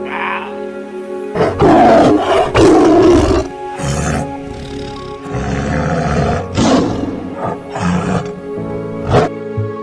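A large animal roaring and growling over soft background music. The loudest roars come about one and a half to three and a half seconds in, followed by several shorter calls.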